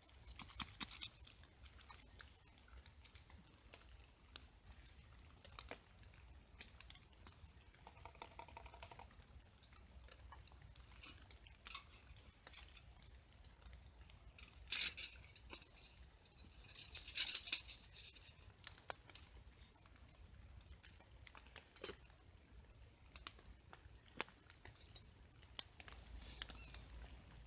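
Faint, irregular rustling and crunching with scattered sharp ticks, a few louder crinkly bursts standing out.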